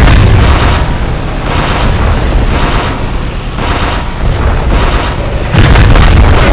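Battle sound effects: heavy booms of tank cannon fire and explosions, one after another every second or so, loudest at the start and again from about five and a half seconds in.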